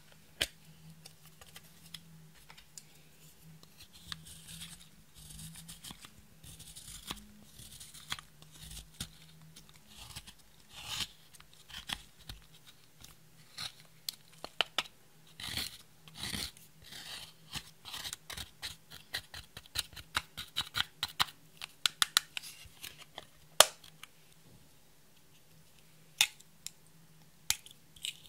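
A plastic spatula scraping and crumbling pressed eyeshadow out of its compact pan: a long run of short, dry scratching and crackling strokes that grow denser toward the middle. Sharp plastic clicks of the compact's lid come at the start and a few times near the end.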